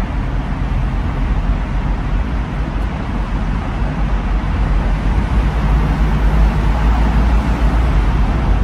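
Wind and road noise inside an open-top convertible driving through a road tunnel: a loud, steady low rumble with wind buffeting the phone's microphone.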